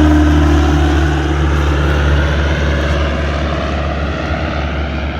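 An engine's steady drone with a low, even hum that slowly fades.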